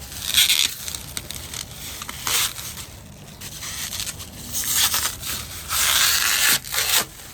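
Packing material being unwrapped and pulled off: several bursts of crinkling and tearing, the longest and loudest near the end.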